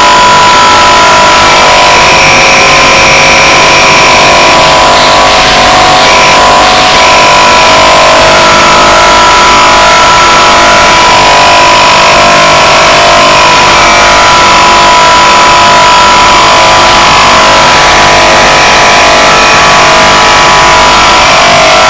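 Danfoss Maneurop two-cylinder reciprocating refrigeration compressor, its housing cut open, running on single-phase power through a capacitor. It makes a loud, steady mechanical running sound with a constant hum and no break, which the owner takes as a sign that the connecting rods are not broken.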